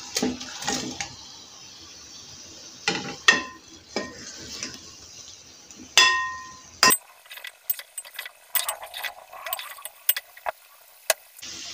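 Metal ladle scraping and clinking against an aluminium pot as fried aubergine pakoras and potatoes are tipped into a masala gravy and stirred in. About six seconds in, the ladle strikes the pot once with a short ring, followed by a run of thin, quick clicks and taps.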